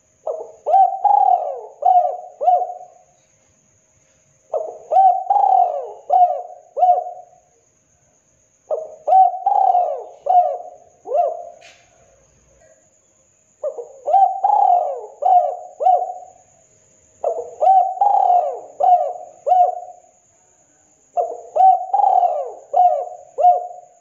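Spotted dove (tekukur) cooing: six phrases of about five quick low coos each, repeated roughly every four seconds.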